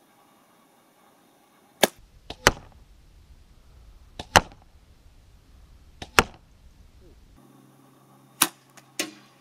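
Compound bows shot at a straw-bale target. There are four shots, each a sharp crack of the string's release followed within about half a second by the smack of the arrow striking the target.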